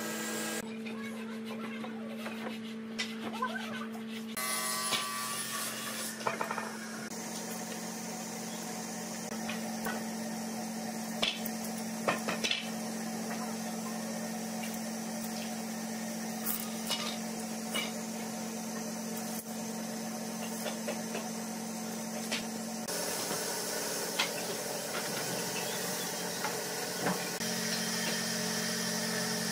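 Woodshop sounds: a steady machine hum, with scattered knocks and clatter as hardwood boards are handled and marked out.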